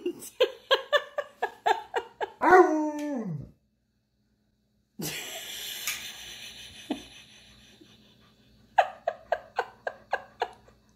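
A dog vocalizing in a quick run of short yips and whines, about five a second, ending in a long note that slides down. After a sudden cut and a quiet stretch, another quick run of short yips comes near the end.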